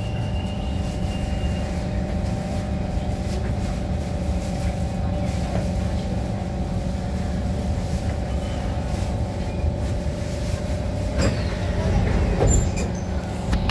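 Steady hum inside the passenger car of a Kawasaki Heavy Industries C151 metro train standing at a station, with a few clicks and knocks near the end.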